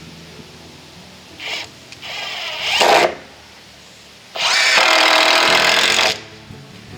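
Power drill running in three bursts: a short blip, a second run whose pitch drops as it stops, then a steadier run of nearly two seconds.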